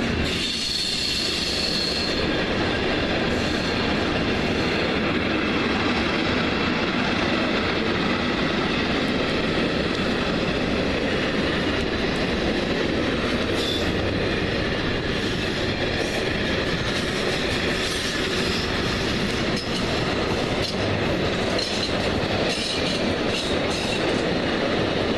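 A train running along the rails at a railway station, a steady loud rumble of wheels and cars throughout, with a high wheel squeal about a second in.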